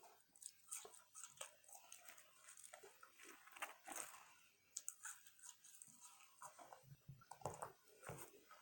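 Faint, close-up chewing and crunching of food, with irregular small bites and mouth sounds.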